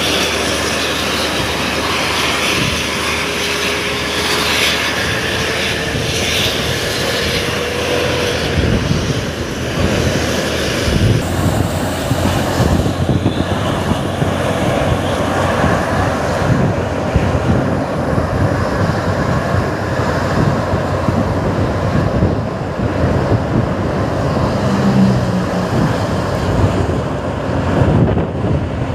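Steady driving noise from a moving vehicle closely following a coach bus: engine, tyre and wind noise. One engine note climbs slowly in pitch over the first eight seconds.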